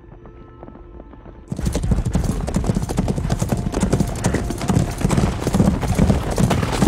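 Hoofbeats of several horses moving at pace over dry, grassy ground. They start suddenly about a second and a half in, dense and loud, over soft music.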